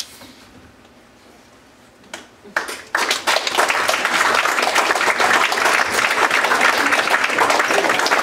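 Audience applauding: a few scattered claps about two seconds in, then full, steady applause from about three seconds in.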